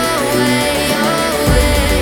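Electronic pop background music with a melodic line; a deep bass comes in about one and a half seconds in.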